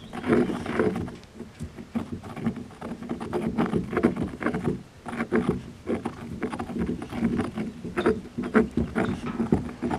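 Stone pestle grinding shelled acorn nut into powder in a stone mortar: a steady run of short, irregular scraping and knocking strokes, stone on stone with the crushed nut between.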